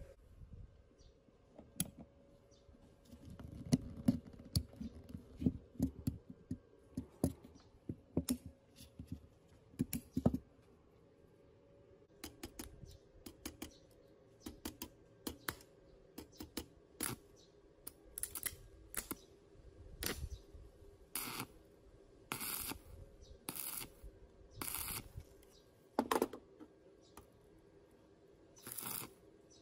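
Steel parts being handled and fitted together on a bench vise: scattered metal clicks and knocks, then from about halfway a run of short, sharp rasping sounds roughly once a second.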